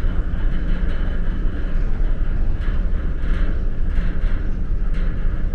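Steady low rumble of a large car ferry underway, heard from its open deck.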